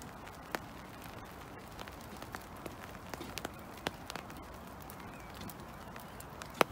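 Steady rain falling, with scattered sharp taps of drops and footsteps on a wet wooden boardwalk. One sharper tap near the end is the loudest.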